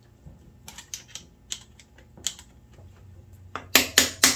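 Light metallic clicks of gearbox parts being handled, then near the end rapid hammer blows, about three a second, on the transmission shift shaft of a Suzuki LT250R engine case, trying to drive out a shift shaft that is stuck tight.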